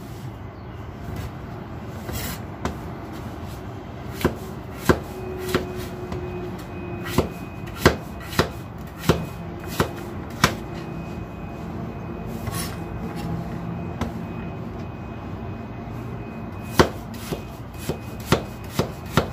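Knife cutting young green papaya into thin strips on a chopping board: irregular sharp taps of the blade hitting the board, with a lull of a few seconds in the middle.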